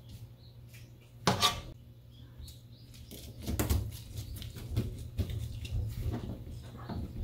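A metal spatula knocks once with a short ring about a second in, then a bamboo kimbap rolling mat clicks and rattles as hands roll it up around the filling.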